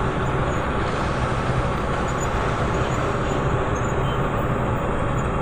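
Bus engine and road noise heard from inside the cabin as the bus drives along, a steady rumble and hiss.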